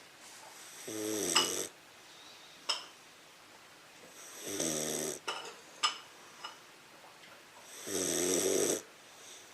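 English Mastiff puppy snoring: three pitched snores, each about a second long, coming about every three and a half seconds. A few short, sharp clicks fall during and between them.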